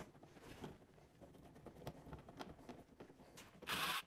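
Faint clicks of a tool working at a snowmobile's front hood screw, then near the end a cordless drill-driver runs briefly, trying to back out a screw that spins in its plastic grommet.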